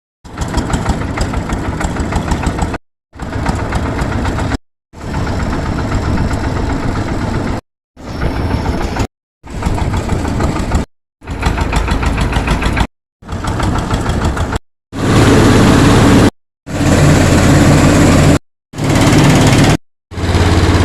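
Engine of a travelling rice mill running, heard in a string of short clips that each cut off abruptly; in the last few clips it is louder, with a steadier low hum.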